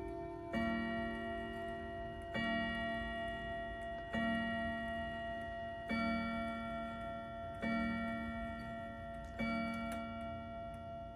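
Verichron Suffolk wall clock with a Hermle movement striking the hour: six evenly spaced strokes of the same tone, about two seconds apart, each ringing on and fading. The pendulum's ticking runs underneath.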